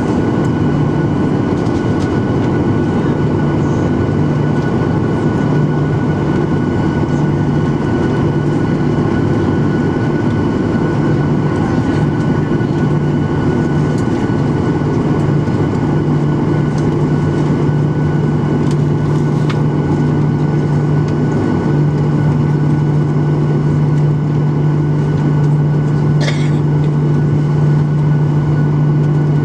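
Cabin noise of a Boeing 737-900ER taxiing, its CFM56-7B engines running at low thrust: a steady low hum with a fainter high whine over a constant rumble.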